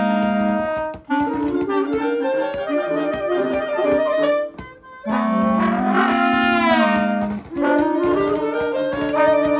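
Small amateur wind ensemble of two clarinets, alto saxophone, trombone and keyboard sight-reading a concert band piece: held chords broken by short breaks, with passages of moving notes between them.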